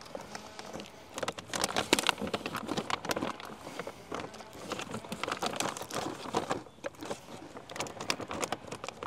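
Plastic food packaging crinkling and rustling as it is handled, with many small irregular crackles.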